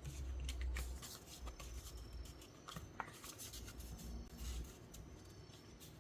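Close handling and rustling sounds: scattered light clicks and scratches, with low thumps in the first second and again a few seconds in.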